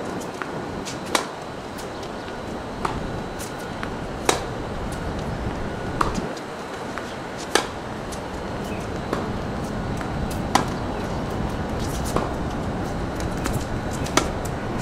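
Tennis ball being hit back and forth with rackets in a rally: sharp pops about every one and a half seconds, some louder than others, over a steady background hiss.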